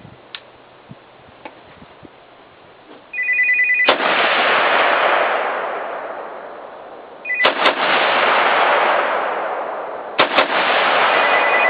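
AR-15 rifle in .223 firing: a single shot about four seconds in, then two pairs of quick shots, each followed by a long rushing decay. A short electronic beeping sounds several times between the shots.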